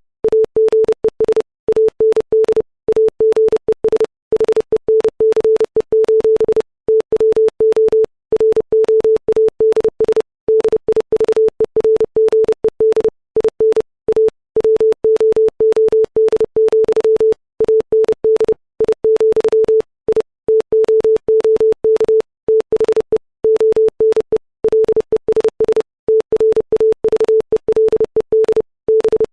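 Computer-generated Morse code at 30 words per minute: a 440 Hz sine-wave tone keyed on and off in rapid dots and dashes, with short pauses between letters and longer ones between words.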